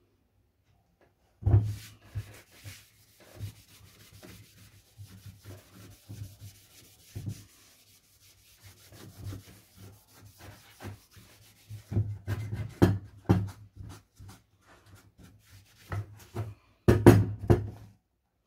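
A cloth rubbing over the wooden body of a hand plane in uneven strokes, with several louder knocks and bumps.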